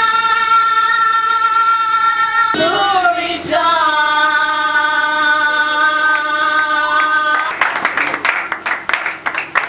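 A small church choir of female voices, girls and a woman, singing long held notes, with a short break about a third of the way in. About two seconds before the end the singing stops and hands clap.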